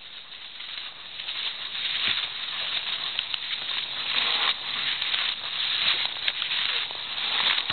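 Cross-country skate skis scraping and gliding on groomed snow: a hiss that swells and fades with each skating stride, growing louder over the first couple of seconds.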